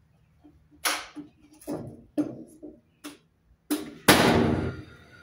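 A series of knocks on the timber pergola post and beam, then a louder, longer burst about four seconds in that rings on briefly.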